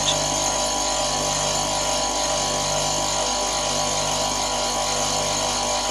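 Electric motor of a bench grinder converted into a wax lathe, running steadily with an even hum and whine while a wax ring blank is bored out.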